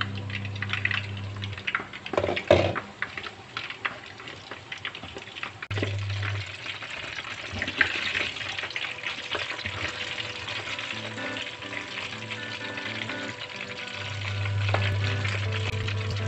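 Battered chicken gizzards deep-frying in hot oil in a pan: a continuous crackling sizzle with sharp pops, loudest in a cluster of bursts about two and a half seconds in. Background music plays underneath.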